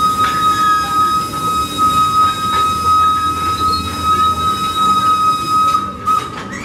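Wood-fired steam locomotive's whistle held on one long steady note that stops about six seconds in, over the low rumble of the converted sugarcane cars rolling past.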